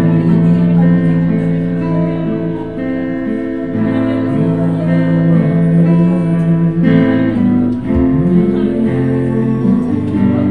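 Christian worship song: acoustic guitar strumming under long, held sung notes.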